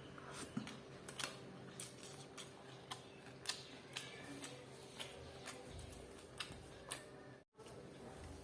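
Close-miked eating: chewing with a run of sharp wet mouth clicks and smacks, about two a second.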